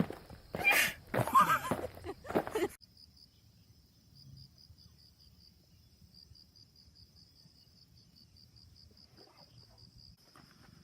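A few loud scuffs and knocks, then a sudden cut to quiet in which an insect chirrs steadily at a high pitch, pulsing about three or four times a second, over a low rumble.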